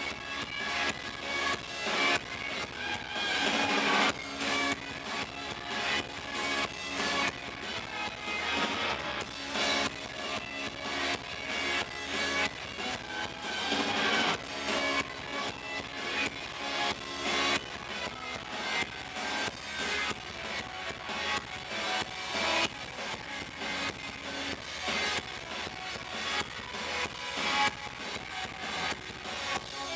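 Live rock band playing a song on electric guitars, bass guitar and drum kit, with a steady drum beat.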